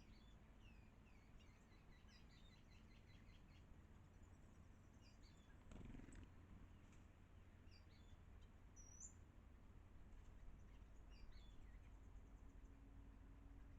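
Faint birds chirping in short, quick notes throughout, over a low steady background rumble, with one brief soft thump about six seconds in.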